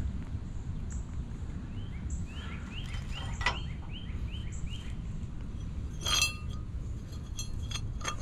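Steel trailer hardware (U-bolts and chain) clinking sharply three times as it is handled, the clink a little after the middle the loudest. A bird chirps quickly about eight times partway through, over a steady low rumble.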